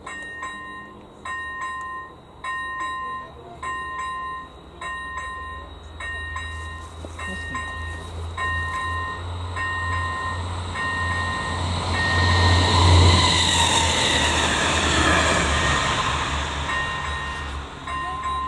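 Electronic warning bell (ZV-01 ringer) of an AŽD 97 level crossing dinging about twice a second. A diesel passenger train then passes over the crossing, its engine rumble and wheel noise swelling to a peak a little past halfway and fading away, and the dings are heard again near the end.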